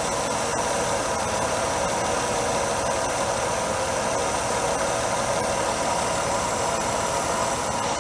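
Mercedes W124 300E's M103 straight-six engine idling steadily after warm-up. Its KE-Jetronic mixture has just been set to about 50% duty cycle with a new EHA valve.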